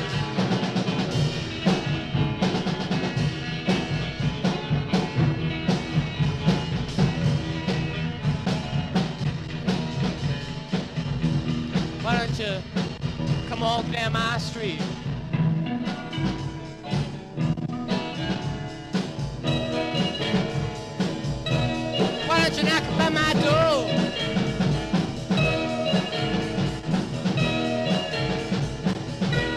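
Mid-1960s garage-rock band recording in a passage without lyrics: a full band plays with a steady drum beat, and wavering high notes come in about halfway through and again near the end.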